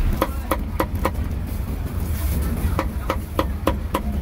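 Meat cleaver chopping roast pork belly on a chopping block. There are four sharp chops in the first second, a pause of about a second and a half, then a steady run of chops at about three a second. A low, steady rumble of street traffic runs underneath.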